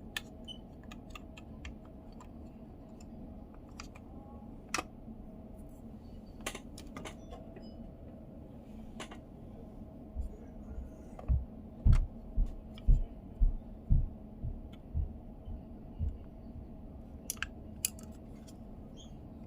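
Scattered light clicks from small plastic parts of a Mazda commander control knob being handled during teardown or assembly. Past the halfway point comes a run of about ten dull thumps, the loudest sounds, over a faint steady hum.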